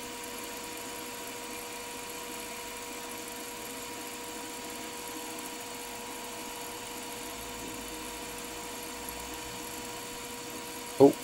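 Milling machine spindle running steadily, spinning a wobble-pin edge finder at about 1000 RPM: an even hum with a constant whine.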